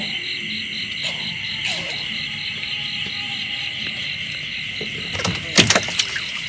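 A steady chorus of night insects, a high, fast-pulsing trill. A few sharp knocks and clicks come about five and a half seconds in.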